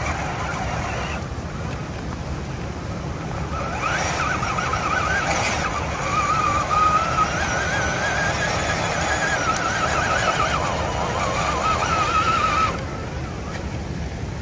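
Electric motor and gear drive of an RC4WD Toyota scale rock crawler whining under load as it climbs rock. The pitch wavers with the throttle from about four seconds in and cuts off suddenly near the end, with a couple of sharp clicks early in the whine, over a steady low rumble.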